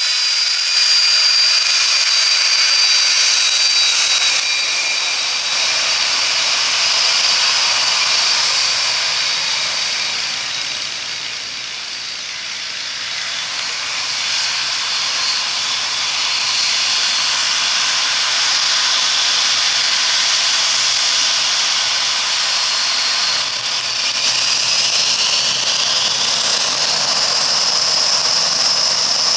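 Cessna Citation II's twin Pratt & Whitney JT15D turbofans running at taxi power: a steady high whine over a hiss that dips in the middle. Near the end the engines spool up with a rising whine.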